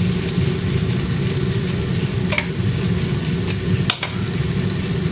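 Blanched pea pods being dropped into a steel bowl of ice water, with a few sharp clicks and splashes about two and a half and four seconds in, over a steady low kitchen rumble.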